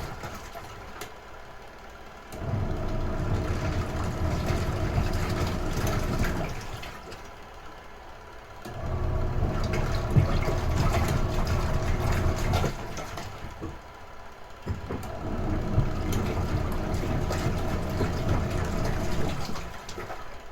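Retro-style washing machine in its wash cycle: the motor and churning water run for about four seconds, stop for about two, then start again, three runs in all.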